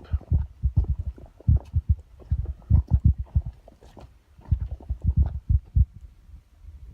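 Rapid, irregular low thumps and rumbles on the camera's microphone, several a second.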